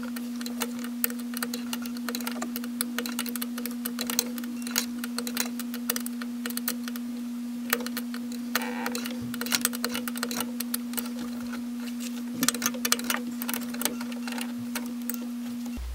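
Irregular small metallic clicks and ticks of a wrench working the brake line flare nuts on a brake master cylinder, over a steady low hum that cuts off near the end.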